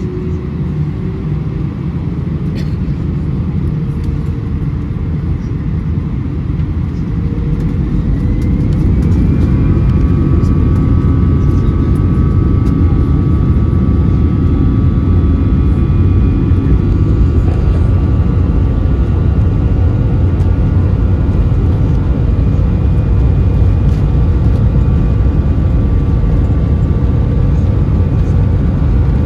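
Airbus A319's jet engines heard from inside the cabin, spooling up to takeoff power: a loud low rumble that swells about a third of the way in, with a rising whine that settles into several steady high tones.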